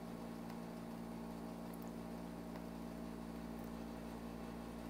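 Steady low electrical hum with a faint hiss, with a few faint clicks over it.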